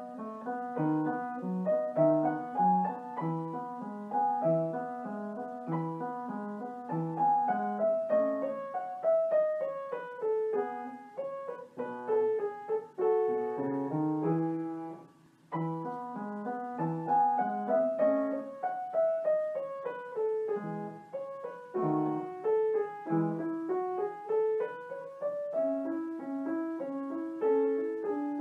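Solo piano background music: flowing melodic runs over a steady, repeating low accompaniment. It breaks off briefly about halfway through and then resumes.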